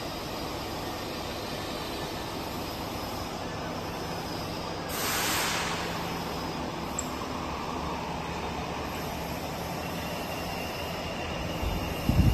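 Workshop machinery running steadily with a low hum, and a short hiss about five seconds in.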